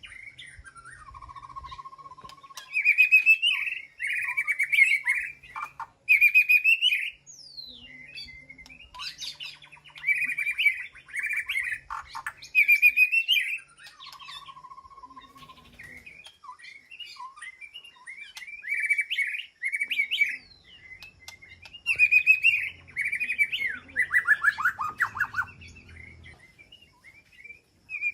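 White-rumped shama singing in varied phrases: bursts of rapid high chirping notes separated by short pauses, with a couple of lower, held whistled notes and a quick descending run of notes near the end.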